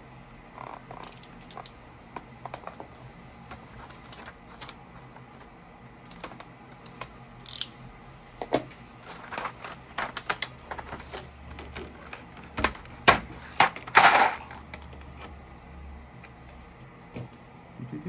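Irregular plastic clicks and clacks from handling the keycaps and body of a Keychron K8 Pro mechanical keyboard during a keycap swap. The clicks grow louder and more frequent in the last third, with a brief scraping rustle among them.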